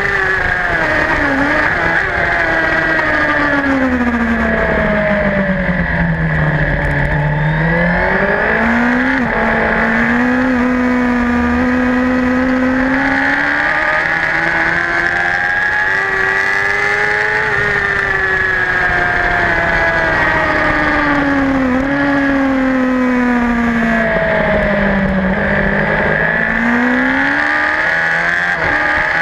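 Racing superbike engine from an onboard camera at race pace, its pitch falling in steps through downshifts under braking, then climbing again under acceleration; this happens twice, about seven seconds in and again near the end.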